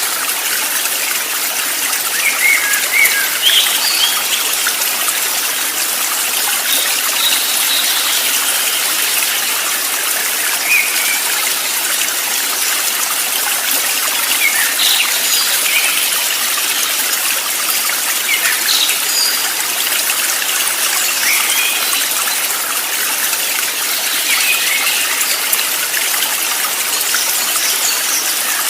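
A stream trickling and running steadily, with short bird chirps scattered over it every second or two.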